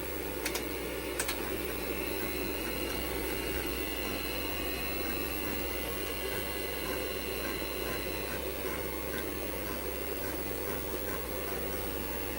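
IBM PC and its expansion unit running with the cover off: a steady whir of power supply fans and spinning hard drives. Two sharp clicks come about half a second and a second in.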